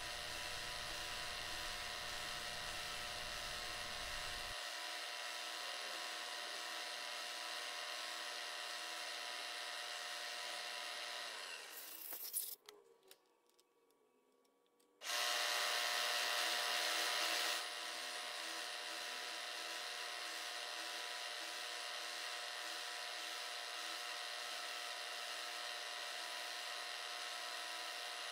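Milling machine spindle running with an end mill nibbling the teeth of a metal workpiece: a steady machine hum with a whine. About twelve seconds in it fades out to silence for a couple of seconds, then comes back louder for a few seconds before settling to the steady level.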